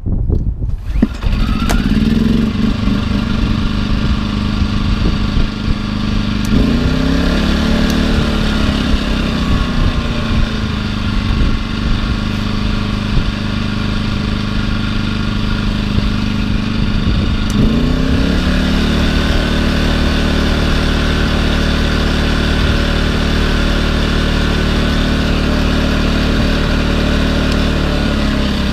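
Small portable inverter generator engine running steadily after coming up to speed about a second in; its engine speed rises and settles several times, as an inverter generator does when it adjusts its speed to the load.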